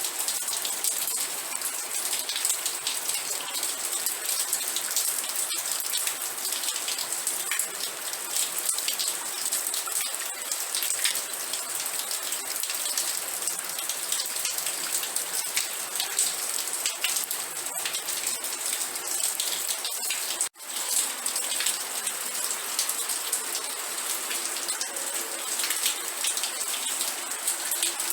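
Steady rain: a dense hiss of many small drop impacts on a surface, broken by a split-second gap about two-thirds of the way through.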